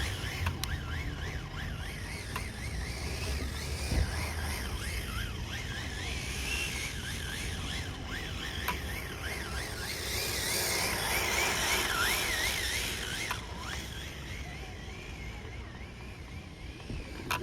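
Radio-controlled car's motor whining as it is driven, the pitch wavering quickly up and down with the throttle, over a rushing noise of the car running on the ground. A couple of knocks, one at the start and one about four seconds in.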